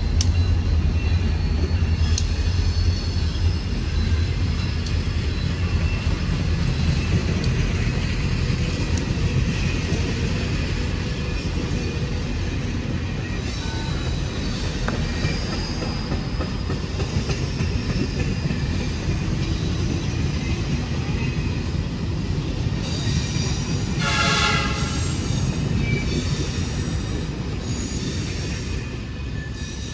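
CSX passenger cars of an office car special rolling past on the rails: a steady, loud rumble of wheels with faint high ringing tones above it, fading near the end as the last car goes by. About 24 seconds in, a brief higher tone sounds for about a second.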